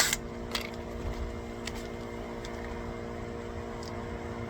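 Rapid airsoft gunfire cuts off right at the start, leaving a steady low hum with a few faint scattered clicks. The clicks are the shooter handling an airsoft pistol that will not fire because its safety is on.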